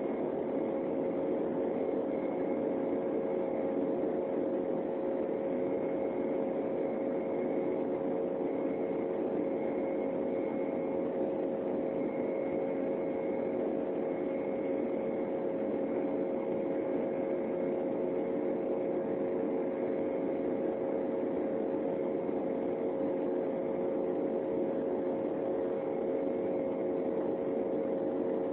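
Steady cabin noise of an Embraer 195 airliner in flight: the drone of its turbofan engines and rushing air, with a steady mid-pitched hum and a faint high tone that comes and goes.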